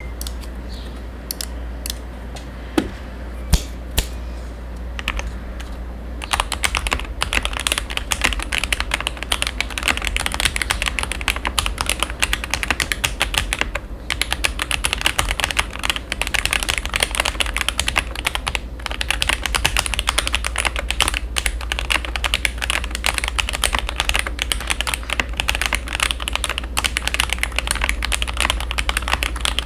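GMMK Pro mechanical keyboard with lubed Akko Jelly Black linear switches, its case modded with PE foam and tempest tape, being typed on. A few separate keystrokes come first, then continuous fast typing from about six seconds in.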